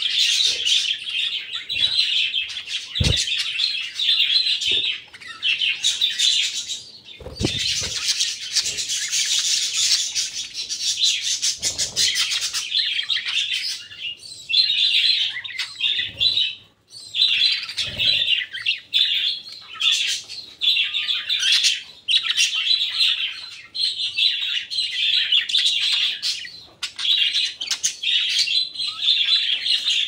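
Male budgerigars chattering and warbling without a break, a busy stream of fine chirps and scratchy notes. A harsher, hissier stretch comes about a quarter of the way in, and a few dull thumps are heard.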